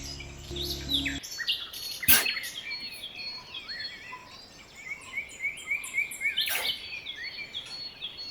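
Small birds chirping: many short, quick repeated calls. A low steady hum stops about a second in, and two sharp clicks come near 2 and 6.5 seconds.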